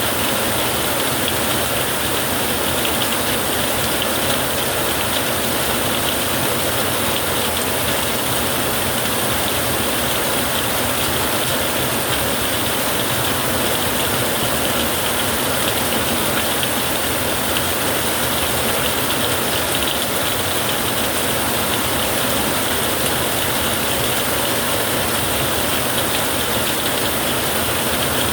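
Steady rain drumming on a tin roof, an even, unbroken hiss with no thunder in it.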